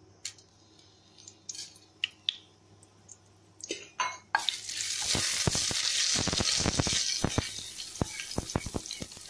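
Whole spices (bay leaf, fennel seeds, cardamom, cloves, cinnamon, peppercorns) frying in hot ghee in a pressure cooker. There are a few light clicks, then a sudden loud sizzle starts about four and a half seconds in, while a wooden spatula knocks and scrapes against the pot as it stirs. The sizzle eases off near the end.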